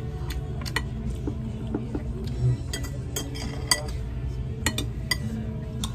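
Metal cutlery clinking and scraping against ceramic plates, about a dozen sharp clinks, with a soft low thump about halfway through, over a steady low background hum.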